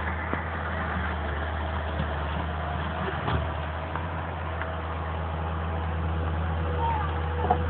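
Tracked excavator's diesel engine running steadily, a constant low hum with a few faint knocks.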